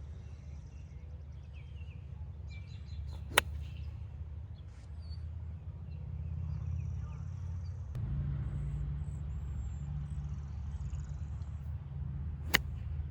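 Two sharp cracks about nine seconds apart, typical of hickory-shafted clubs striking golf balls, over a steady low rumble that grows a little louder about two-thirds of the way through, with faint birdsong.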